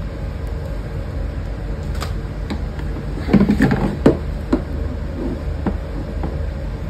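Handling of a self-contained breathing apparatus set in its hard plastic carrying case: a cluster of knocks and clicks about three to four and a half seconds in as the hoses and fittings are lifted against the case, over a steady low hum.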